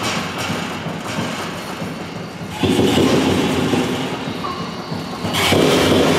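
Prepared grand piano with an object resting on its strings, sounded by the keys and by a hand reaching in on the strings: a dense, noisy low cluster of strings that swells louder about two and a half seconds in and again near the end.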